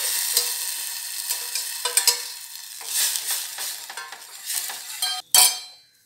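Hot ghee tempering with mustard seeds and curry leaves sizzling as cooked toor dal goes into the steel pan, the sizzle dying away over the first two seconds or so. Then a metal ladle stirs and scrapes in the steel pan, with clicks and a louder knock near the end.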